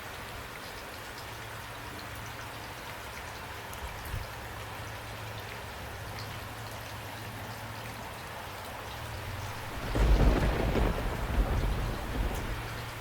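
Steady rain falling, with a peal of thunder about ten seconds in that lasts two to three seconds and is the loudest sound.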